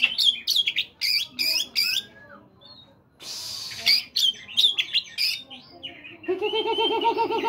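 Oriental magpie-robin (kacer) singing: bursts of rapid, sharp whistled and scratchy notes, a short harsh rasp about three seconds in, and a lower, fast-warbling rattle near the end.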